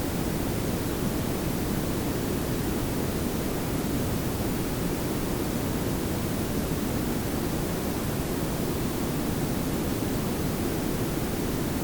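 Layered pink and brown noise: a steady, even hiss over a low rumble, with no change in level.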